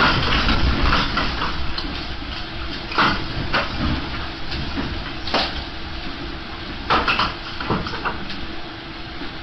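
An earthquake's rumble dying away while loose household objects rattle and clatter, with a few sharp knocks of things striking each other.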